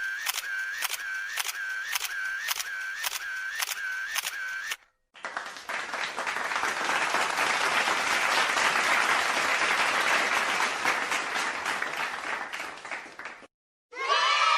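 Two stock comedy sound effects in a row. First comes a repeating click over a wavering tone, about two a second, which stops after about five seconds. Then a dense wash of noise, like applause, swells and fades out just before the end.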